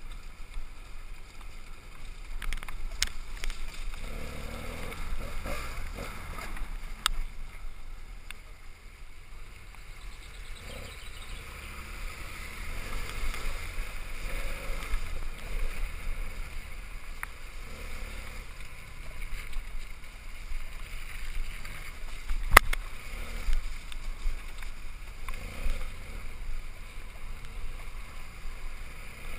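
BMW parallel-twin adventure motorcycle riding over a wet gravel track, picked up by a helmet-mounted camera: muffled engine running with wind rush, and a few sharp clicks, the loudest about two-thirds of the way through.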